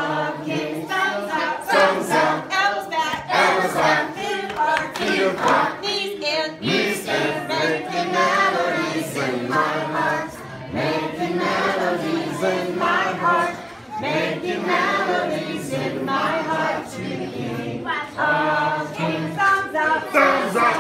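A large group of children singing a song together in chorus.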